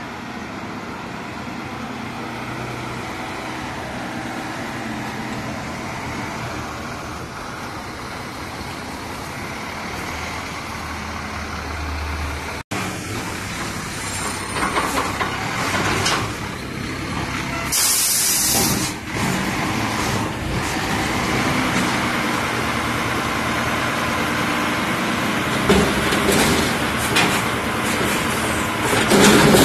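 Heil front-loader garbage truck's diesel engine running as it pulls up, with a short, sharp air-brake hiss past the middle. Near the end the engine gets louder while the hydraulic arms lift a container over the cab.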